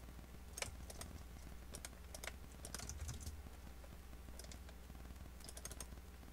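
Computer keyboard typing: faint, irregular clusters of keystrokes as short words are typed, over a steady low electrical hum.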